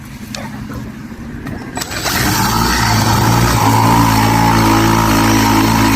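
A click about two seconds in, then a motor starts and runs steadily with a low hum.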